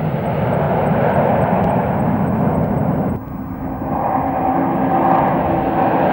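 Formation of jet aircraft flying past, a loud steady rush of jet engine noise. It drops abruptly about three seconds in, then comes back with a thin steady whine in it.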